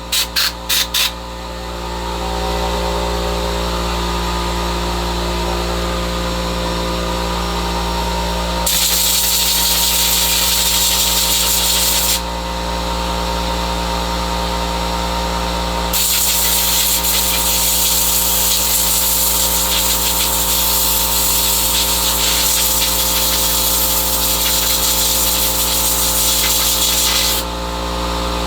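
Compressed-air blow gun hissing as dust is blown out of chainsaw parts: a few short puffs at the start, then a blast of about three seconds and a long one of about eleven seconds. A steady motor hum runs underneath.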